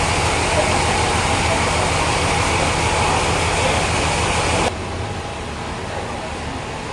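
Sawmill machinery running: a steady, loud mechanical din with a low hum underneath. About two-thirds of the way through it drops suddenly to a quieter level and carries on steadily.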